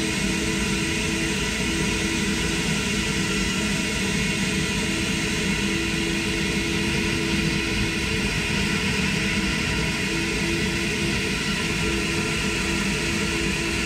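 SuperFlow SF-600 flow bench running steadily: a constant rush of air with a steady hum as it draws air through the intake port of a CNC-ported Gen III 6.2 L Hemi Hellcat cylinder head. The bench is holding about 28 inches of water test pressure and flowing around 400 CFM.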